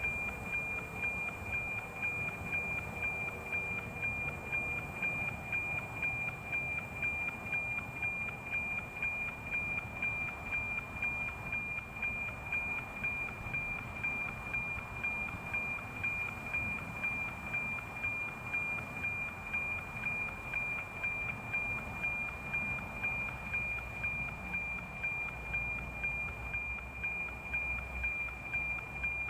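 NOAA 19 weather satellite's APT image signal, FM-demodulated by an RTL-SDR receiver: a steady high whistle with a regular tick-tock of the image lines, about two a second, over radio hiss.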